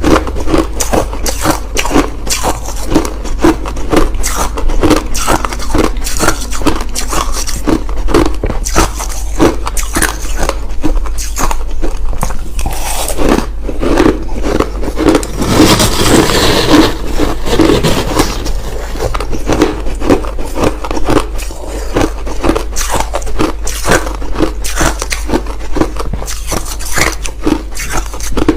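Crushed ice being chewed close to the microphone: continuous rapid crunching and cracking, with a brief rushing hiss about halfway through.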